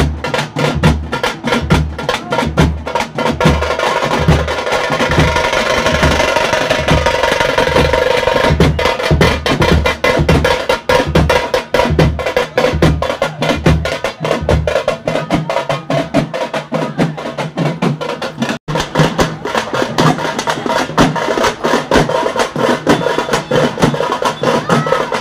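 Street procession drums beaten in a fast, loud, driving rhythm, with a deep beat pulsing underneath that drops out about fifteen seconds in while the faster drumming goes on.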